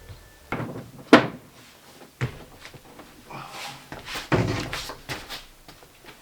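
Sheets of plywood being handled and stacked: a few hollow wooden knocks, the loudest about a second in, and a scraping slide in the middle as a sheet is pushed into place.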